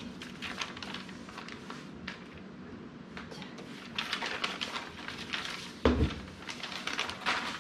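Paper pattern pieces rustling and crinkling as they are lifted off the fabric and folded, busier in the second half. About six seconds in, a single dull thump as a heavy round pattern weight is set down on the wooden table.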